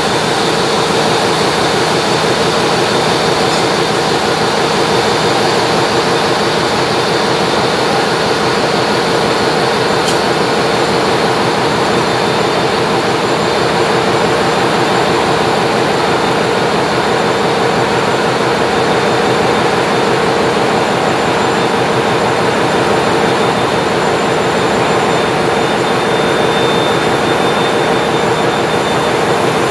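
Loud, steady machinery noise of a ship's engine room, with a hum and a faint high whine in it.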